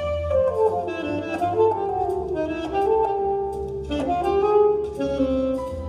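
Saxophone playing a jazz melody, with a quick falling run in the first second, over piano chords.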